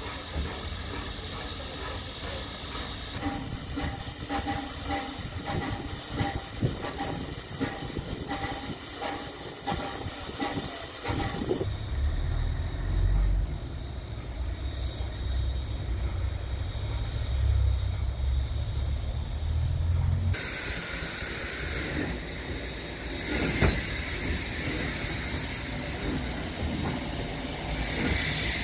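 Ol49 steam locomotive coming into the station with its passenger train, rail clicks and steam hissing, with a heavy low rumble through the middle. From about two-thirds of the way in, a loud, steady steam hiss takes over.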